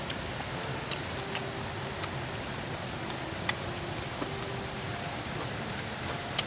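Steady rushing of a mountain stream over rocks, with a handful of sharp, separate clicks of chopsticks and plastic food containers as people eat.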